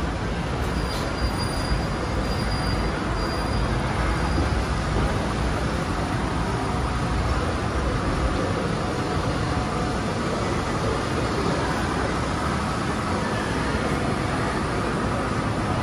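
Steady ambient noise of an indoor arcade: an even low rumble with a hiss over it and no distinct events.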